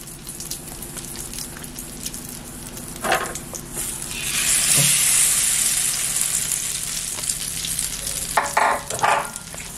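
Egg-dipped bread slices frying in hot ghee in a non-stick pan. A quiet sizzle turns loud about four seconds in, as the second egg-soaked slice goes into the fat.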